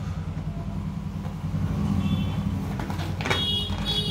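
A steady low motor-like hum throughout, with short high squeaks about two seconds in and again near the end as a small rubber balloon is handled.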